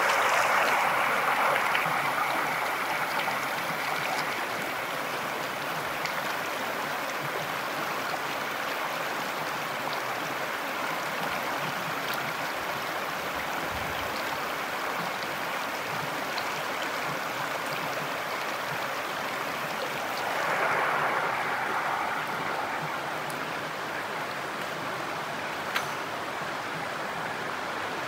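Shallow stream rushing and splashing over rock ledges, heard close to the water: a steady rush that swells briefly about three-quarters of the way through, with one short click near the end.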